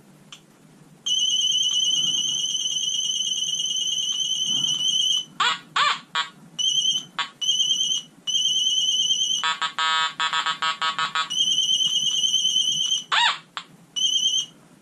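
Nokta Makro Anfibio metal detector going off nonstop while switched on indoors. A high steady beep starts about a second in and breaks into choppy, stuttering beeps with a few quick rising chirps. Around ten seconds in there is a brief buzzier tone, then the steady beep comes back.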